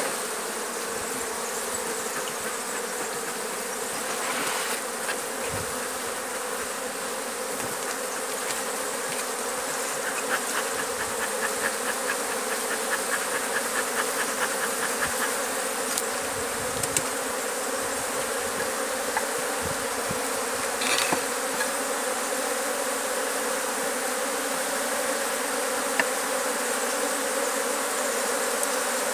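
Honeybee colony buzzing in an opened hive: a steady, dense hum from a crowded box of bees.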